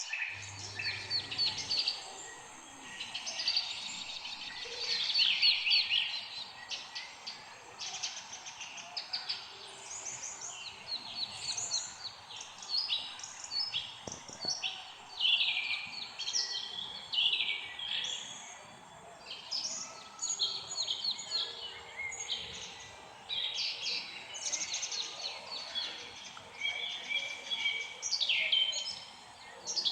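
Several songbirds chirping and singing at once: a dense chorus of quick high chirps and trills, overlapping with hardly a pause.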